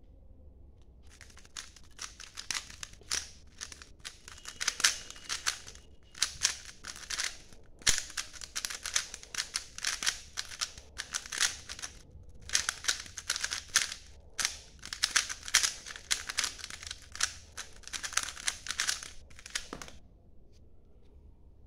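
3×3 speedcube being turned fast by hand through a full solve: dense runs of plastic clicking and rattling as the layers turn, in bursts broken by short pauses. It starts about a second in and stops about two seconds before the end.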